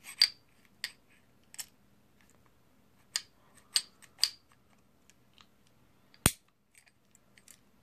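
Slide of a Rock Island M1911 .45 pistol being worked along its frame during reassembly: light metallic clicks and scrapes of steel on steel, about six in the first few seconds, then one sharper click about six seconds in.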